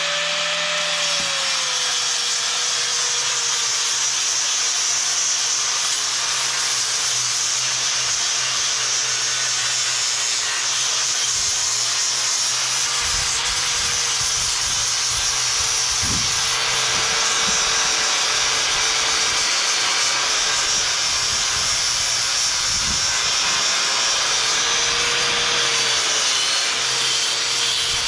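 Angle grinder with a stiff sandpaper-like abrasive wheel grinding down high grout on a concrete block: a loud, steady hissing grind with the motor's whine settling lower just after the start and dipping now and then under pressure.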